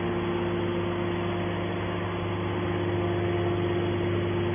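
Hydraulic scrap-metal baler running: its motor-driven hydraulic pump giving a steady, even hum.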